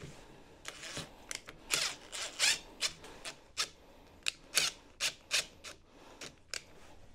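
Cordless drill-driver turning the brake lever's bolt in a quick series of short trigger bursts, about three a second, with brief pauses in between.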